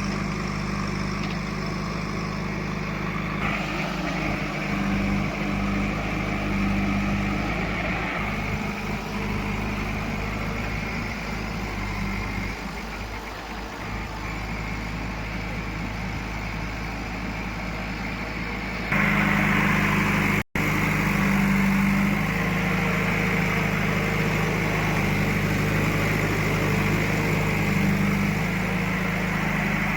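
Heavy diesel engine of farm or construction machinery running steadily at low speed. Its sound changes abruptly about 3 and 19 seconds in, and there is a split-second dropout about 20 seconds in.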